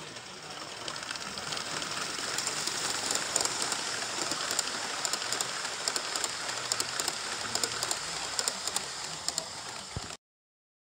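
Gauge 1 model train running past on garden track: a steady rolling noise with rapid irregular clicks, growing louder over the first couple of seconds as it approaches. The sound cuts off suddenly near the end.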